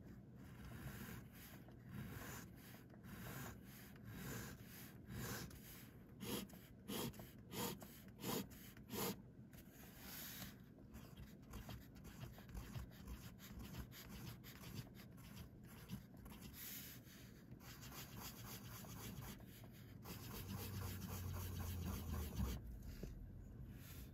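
Parker 50 Falcon fountain pen's integrated nib scratching on paper: a series of short separate strokes as straight lines are drawn, then longer continuous scribbling as circles and spiral loops are written.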